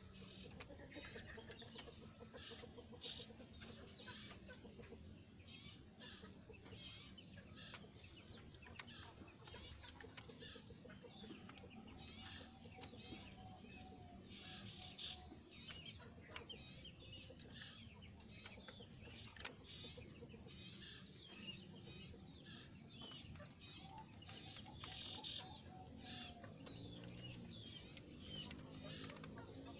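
A moulting jongkangan bird calling in many short, scattered chirps, its voice hoarse and unable to sing out fully because of the moult.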